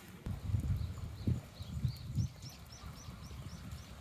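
Strong wind buffeting the microphone in irregular low gusts, with a bird singing a series of short rising notes, about three a second, over the second half.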